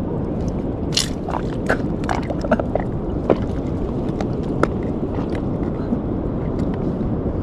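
Steady wind and sea noise on the microphone, with scattered short clicks and taps; the sharpest comes about a second in.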